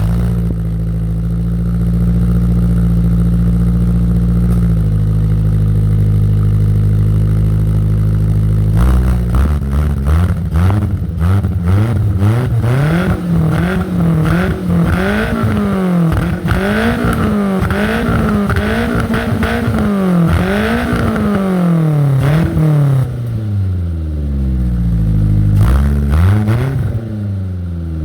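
Car engine heard through a custom one-off muffler with a GT-K-type silencer. Freshly started, it idles steadily, its idle dropping slightly about five seconds in. From about nine seconds on it is free-revved in repeated short blips, then one longer rev that falls back to idle, and one more blip near the end.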